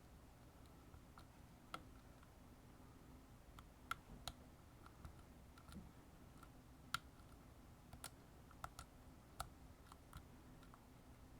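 Faint, irregular small clicks of a lock pick and tension wrench working inside a Pickproof brand lock, a dozen or so scattered ticks over a low steady hum.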